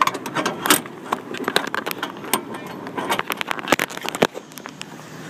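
Phone handling noise: a quick, irregular run of clicks, knocks and rattles, with a metallic jangle like keys or gear, as the phone is jostled against clothing and the metal bucket.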